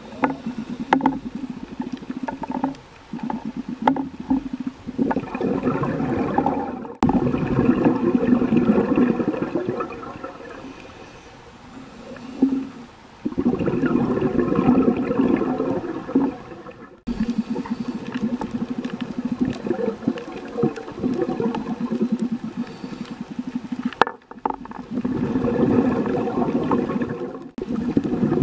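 Underwater bubbling and gurgling from a scuba diver's regulator: exhaled bubbles come in swells of a few seconds, with quieter stretches between breaths.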